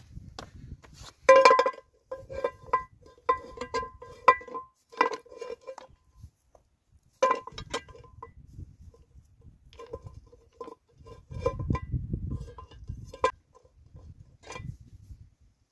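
A metal frying pan clinking and ringing with each knock as it is set down and shifted on the stones of a makeshift rock stove, in clusters of taps with duller scraping of stone between them.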